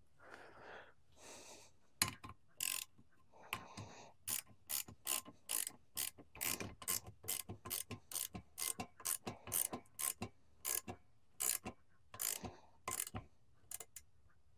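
Small ratcheting wrench clicking in quick back-strokes, about two or three clicks a second, as a nut on a carburetor is tightened. Soft handling noise comes first, and the clicking starts about two seconds in.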